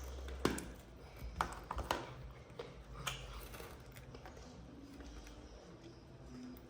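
Slime being squeezed and kneaded by hand, giving a few soft sticky clicks and crackles, most of them in the first three seconds.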